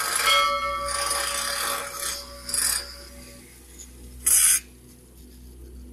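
Small angle grinder working a weld joint on a steel pipe, grinding with a steady whine for about two seconds. Two short, loud bursts follow as the disc touches the metal again, the second about four seconds in, before the sound dies away.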